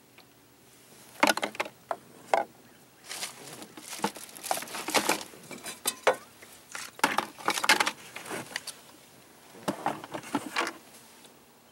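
Water lapping and splashing against a small boat's hull in irregular bursts, with no engine running.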